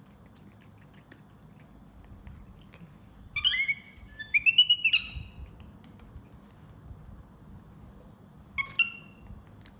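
Baby monkey squealing in short high-pitched cries: a burst about three seconds in, several quick ones right after, and one more near the end.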